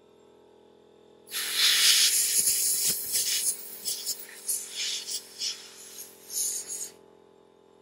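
Compressed air from a nozzle blasting dust out of a Dell XPS laptop's cooling fan. A loud hiss starts suddenly about a second in, goes on in a string of uneven bursts, and cuts off a little before the end.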